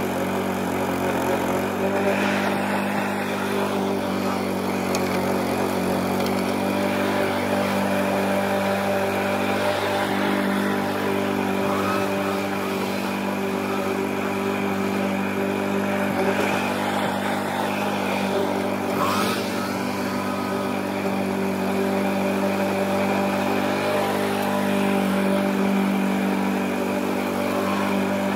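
Lawn mower engine running at a steady, unchanging speed.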